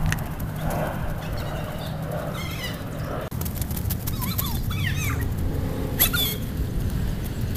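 Low rumble of wind and handling on a handheld camera's microphone as it moves at running pace, with running footsteps on pavement and birds chirping now and then.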